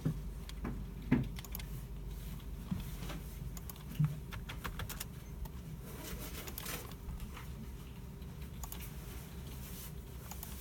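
Scattered keyboard typing and mouse clicks from people at computers, irregular and light, with a few louder knocks near the start and about one and four seconds in, over a steady low hum of the room's machines.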